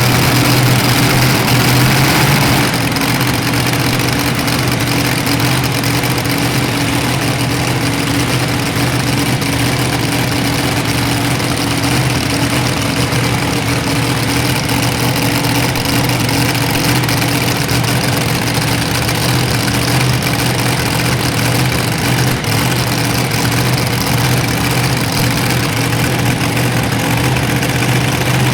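A pulling vehicle's engine runs loudly and steadily at a fairly constant speed, as a low steady drone over a haze of noise. There is a slight drop in level a couple of seconds in.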